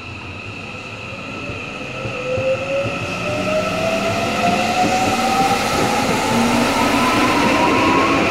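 Electric commuter train pulling out of a station and picking up speed. Its traction motors give a whine that rises steadily in pitch, while the running noise grows louder.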